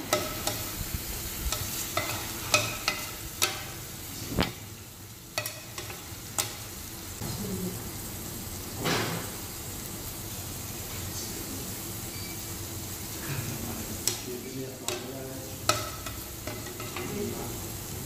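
Spicy Korean stir-fry sizzling in a wide pan on a tabletop burner. A metal spatula scrapes and knocks against the pan as the food is turned, with most of the knocks in the first few seconds and a few more near the end.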